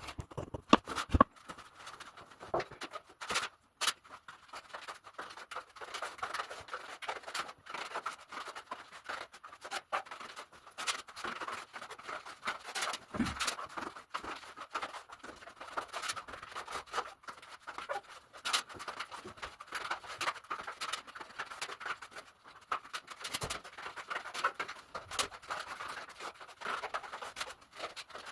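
Grout being worked into tile joints: a grouting tool scraping and swishing over ceramic tiles in a continuous, irregular run of strokes, with occasional sharp clicks.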